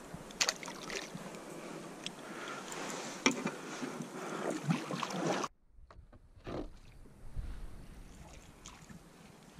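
Kayak paddle strokes in calm water: the blade dipping and splashing, with a few sharp knocks. A little past halfway the sound cuts off abruptly, and quieter splashes follow.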